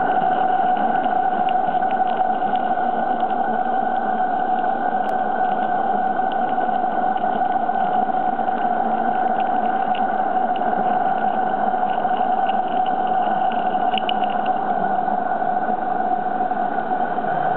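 Accucraft model of a Baldwin War Department steam locomotive working, with a steady hum over an even hiss and a few faint light clicks.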